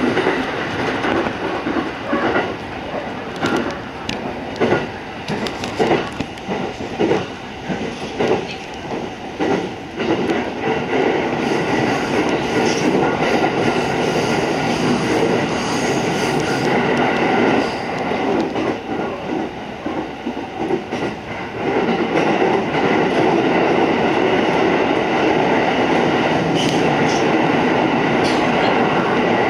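Musashino Line commuter train running, heard on board: the wheels clatter irregularly over rail joints and pointwork as it crosses onto the branch line during the first ten seconds or so, then settle into a steadier running rumble.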